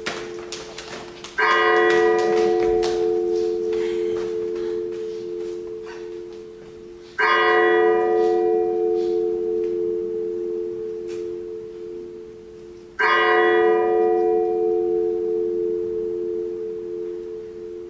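A deep bell tolling slowly: three strokes about six seconds apart, each ringing on and fading away before the next.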